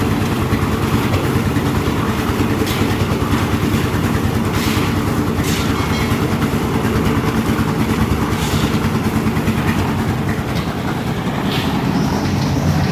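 Concrete mixer machine's engine running steadily under load as it mixes cement, sand and crushed stone. A few short scrapes or clanks cut through it.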